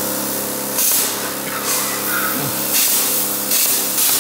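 Plasma cutter torch firing in about four short hissing bursts, roughly one a second, over a steady electrical hum from the unit.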